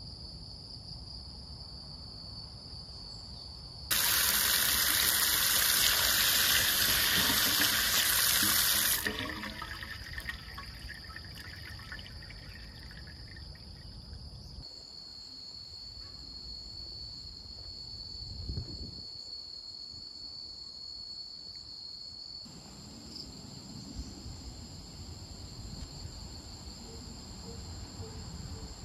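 Water running hard from an outdoor tap into a stone garden sink for about five seconds, starting about four seconds in, then shut off and trickling and draining away. Insects keep up a steady high-pitched chirring.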